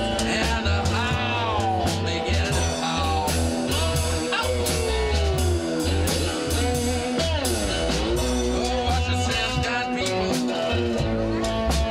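A band plays a slow blues live on cigar box guitars, with electric bass and drums keeping a steady beat. The lead notes slide and bend in pitch.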